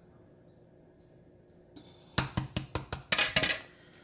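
Metal fork clinking and rattling against a plastic measuring cup: a quick run of sharp clicks about two seconds in, after a quiet start.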